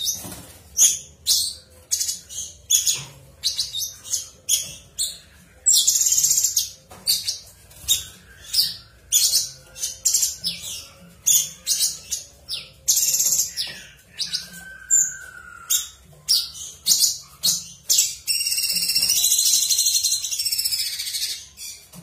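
Caged blue-winged leafbird (cucak cungkok) singing a fast run of sharp, high notes, with a long buzzy trill about six seconds in and another near the end, and a lower slurred whistle around the middle.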